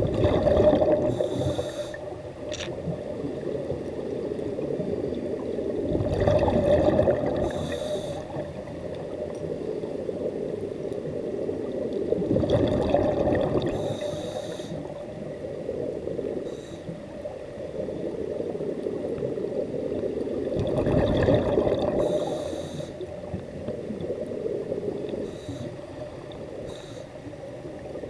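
Scuba diver breathing through a regulator, heard underwater: four rumbling bubble exhalations come about every seven seconds, with short hisses between them, over a steady underwater rush.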